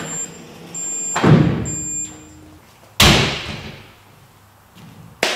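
Three loud slams or thuds, about two seconds apart, each dying away quickly; the first comes out of a short rush of noise.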